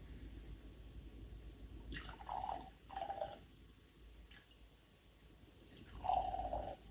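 Scotch whisky poured from a miniature sample bottle into small glass tasting glasses, in short trickles. There are two brief pours about two and three seconds in, and a longer one near the end.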